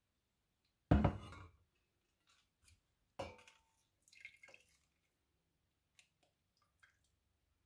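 Stainless steel sieve and wet lemon and ginger being handled over an enamel jug while straining lemon-ginger tea: a sharp knock about a second in, a clink with a short metallic ring a little after three seconds, then a cluster of small clicks and drips, with a couple of faint ticks near the end.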